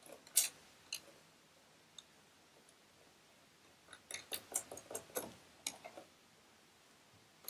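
Light clicks and taps of a sewing machine's metal needle plate and its screws being fitted by hand: a couple of single sharp clicks, then a quick run of clicks about four seconds in.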